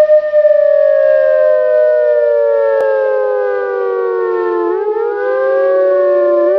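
Civil-defence-style emergency alert siren: two wailing tones that slide slowly down in pitch and then wind back up, out of step with each other.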